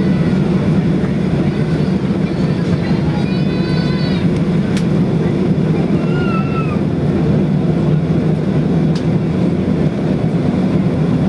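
Steady, loud cabin noise inside a Boeing 737-800 taxiing after landing, its CFM56-7 engines running at low thrust, with faint passenger voices now and then.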